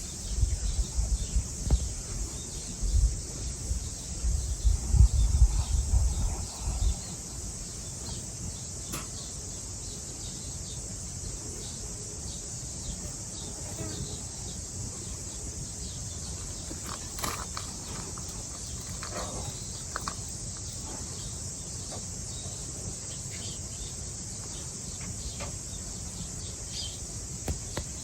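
Outdoor summer ambience dominated by a steady, high insect trill, like crickets. A low, irregular rumble runs through the first seven seconds, and a few faint bird chirps come in the middle and near the end.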